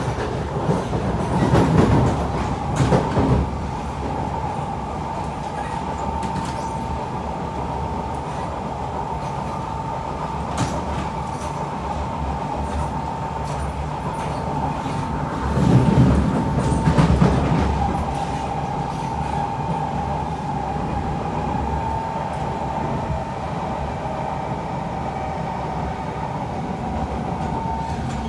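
Kawasaki C151 metro train running at speed, heard from inside the passenger car: steady rolling noise with a constant high whine. The rumble swells louder twice, about two seconds in and again about halfway through.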